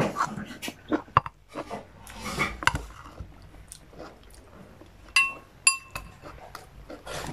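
Dishes clinking as a ceramic bowl is handled during a meal: scattered small clicks, then two bright ringing clinks about five seconds in, half a second apart.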